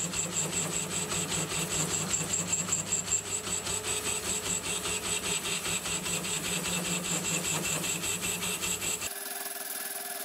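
Metal lathe taking a facing cut in a 4140 chromoly steel blank with a carbide insert: the cutting noise pulses steadily and rapidly over the lathe's running hum. About nine seconds in the sound changes abruptly and the low hum drops away.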